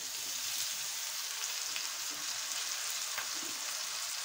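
Soaked chana dal (split chickpeas) sizzling in hot oil in a wok just after being poured in over frying bitter gourd and spices: a steady hiss with a few small crackles.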